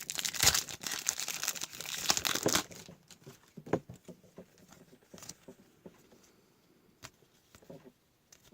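Trading-card packaging being torn open and crinkled, with dense crackling for the first three seconds or so. After that come a few light taps and clicks as the cards and packaging are handled.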